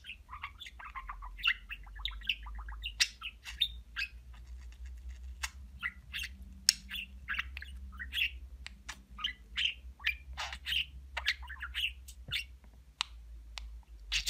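Male green budgerigar chattering: a steady run of quick chirps, sharp clicks and short squawks.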